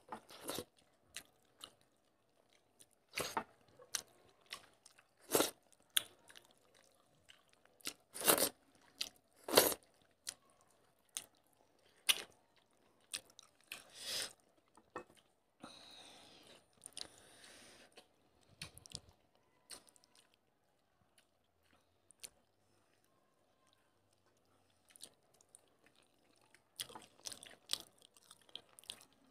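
Close-miked mouth sounds of people eating rice and fish curry with their hands: irregular wet chewing smacks and crunches, with pauses between them. They are loudest in the first ten seconds, with a soft rustle about halfway through.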